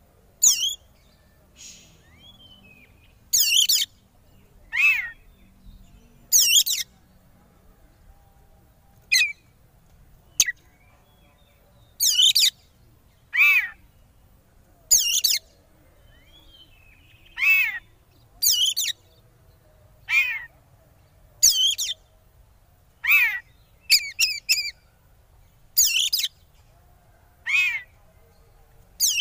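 Oriental magpie-robin giving a long series of short, harsh calls, many sliding down in pitch, about one every second or so. This is agitated, fighting-mood calling, used as a lure to rile rival magpie-robins.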